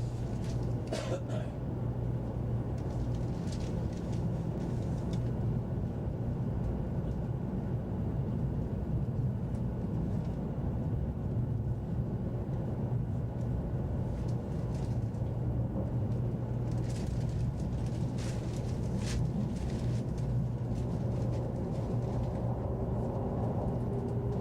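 A 100 series Shinkansen train running, heard from inside the passenger car: a steady low rumble with a few short, sharp clicks and rattles. A faint steady tone comes in near the end.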